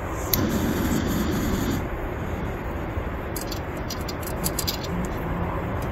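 Steady low outdoor background rumble, with a quick run of clicks and light knocks just past the middle as camping cooking gear is handled.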